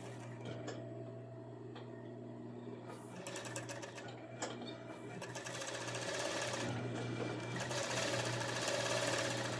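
Industrial sewing machine stitching binding tape onto the edge of a swimsuit top. Its motor hums steadily, and rapid stitching starts about three seconds in and gets louder toward the end.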